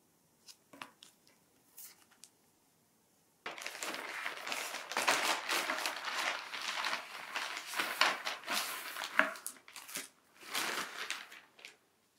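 A few faint handling clicks, then from about three and a half seconds in, packaging being unwrapped: dense crinkling and rustling with sharp crackles, which stops shortly before the end.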